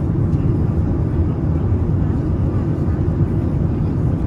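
Steady low rumble inside the cabin of a Boeing 787 at cruise altitude: engine and airflow noise heard from a passenger seat.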